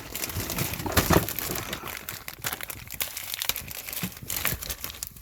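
A car cabin pollen filter and its plastic parts being handled by hand: a dense run of irregular crackles and small clicks, with a louder clack about a second in.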